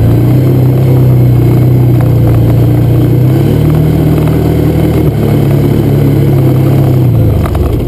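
Can-Am off-road vehicle's engine running under load while driving a dirt trail. Its pitch steps up about three seconds in and eases back off near the end.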